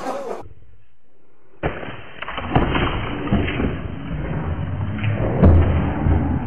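Plaster falling from the ceiling and crashing down: a run of knocks and thuds over a rumbling noise, the heaviest a low thud about five and a half seconds in.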